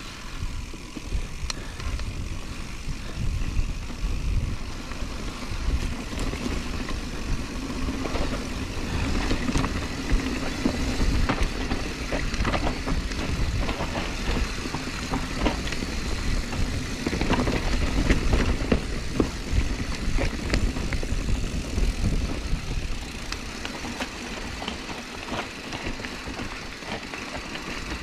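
Mountain bike descending a rough dirt bike-park trail, with wind buffeting the microphone, tyres rolling on dirt, and the bike rattling with frequent sharp clicks and knocks.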